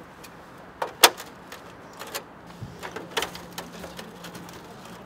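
Metal stovepipe sections for a small wood stove clinking and knocking as they are handled and pushed together. There is a sharp clink about a second in and a run of lighter taps around three seconds in.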